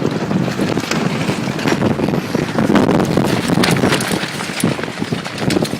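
Strong gusty wind of about 40 mph buffeting the microphone, with a dense rush of noise and many short sharp snaps throughout.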